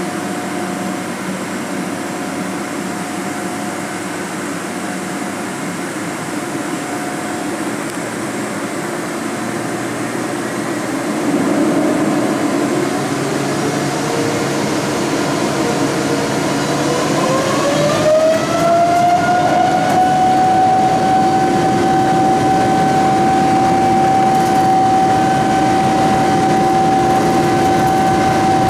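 Boeing 777-200ER's GE90 turbofan engines heard from inside the cabin beside the wing: a steady hum at taxi power, then from about 11 seconds in the engines spool up, their whine rising in pitch before holding steady at takeoff thrust.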